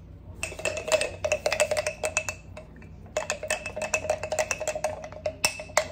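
A utensil stirring a flour-and-water gravy slurry in a glass mason jar, clinking rapidly against the glass so that the jar rings. Two runs of fast tapping, about ten a second, with a short pause between them.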